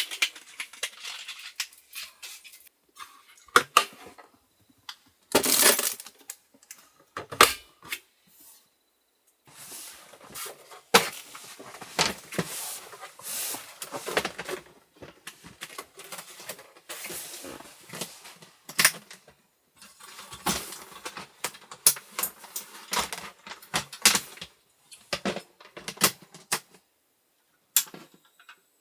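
Irregular clicks, light knocks and rustling of small objects being handled, some louder knocks standing out, with short pauses between.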